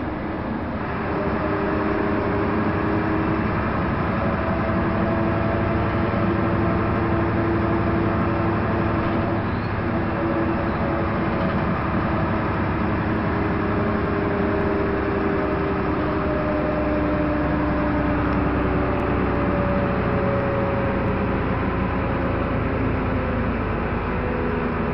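Jelcz 120M city bus's diesel engine and drivetrain running under way, heard from inside the passenger cabin along with tyre and road noise. The sound grows louder about a second in, then holds steady while the engine note slowly wavers in pitch.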